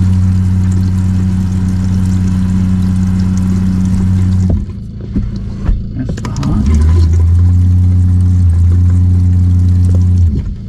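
RV fresh-water pump running with a steady, loud hum as it pressurises the newly connected sink supply lines. It cuts out about four and a half seconds in, starts again about two seconds later, and stops shortly before the end. A few clicks and knocks fall in the gap.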